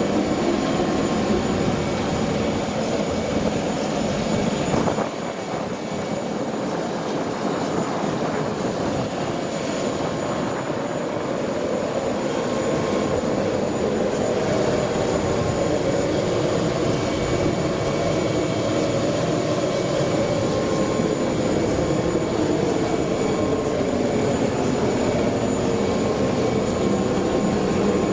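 Jet airliner noise: a steady rumble with a faint high whine, dipping briefly about five seconds in.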